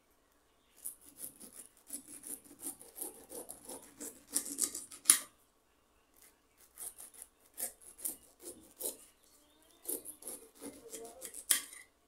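Knife sawing down through the rough rind of a whole pineapple, a rasping run of quick strokes. It comes in three runs with short pauses between, the loudest crunch about five seconds in.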